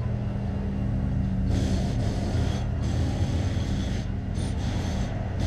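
A heavy vehicle's engine running steadily with a low hum, on a street where potholes are being patched.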